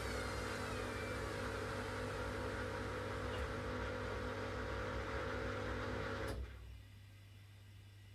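Washing machine running with a steady motor hum and a high whine that falls in pitch and fades in the first second; the running stops suddenly about six seconds in, leaving only a faint low hum.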